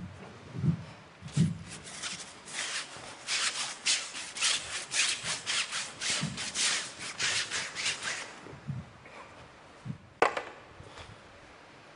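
A loaded paintbrush scrubbing across stretched canvas in quick, rasping strokes, about three a second, for several seconds. There are a few soft thuds before the strokes begin, and a single sharp knock about ten seconds in.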